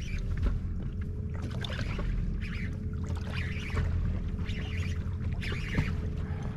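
Wind and water rumble around a small fishing boat, with a faint steady hum and irregular short bursts of hiss.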